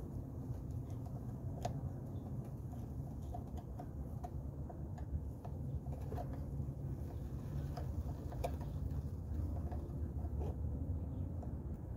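Muffled handling noise from a camera held against clothing: a steady low rumble with scattered light clicks and ticks.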